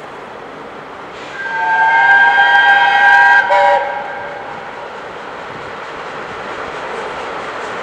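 A passing train sounds a loud multi-note whistle for about two and a half seconds, a chord of several steady tones that shifts slightly just before cutting off. After it comes the steady, gradually building rush of the train running through.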